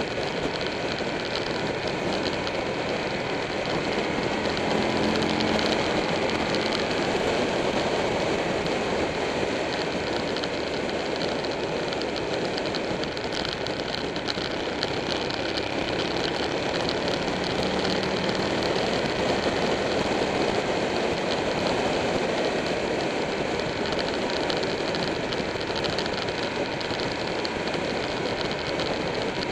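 A Buell 1125R's V-twin engine running at road speed, with its note shifting slightly in pitch through the curves. Heavy wind and road noise over the bike-mounted microphone sits over the engine throughout.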